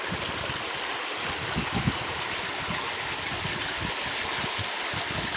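Shallow stream of water rushing and splashing over stones, a steady even rush, with a few soft low bumps, the strongest about two seconds in.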